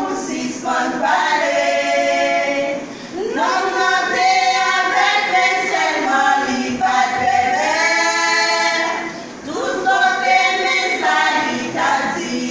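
A vocal group singing a gospel song, the voices holding long notes in phrases with short breaks about three seconds in and again near nine and a half seconds.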